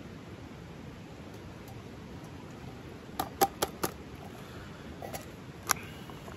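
Small clicks and clinks of camp cooking gear being handled: a quick cluster of four or five sharp clicks about three seconds in and another sharp click near the end, over a steady hiss.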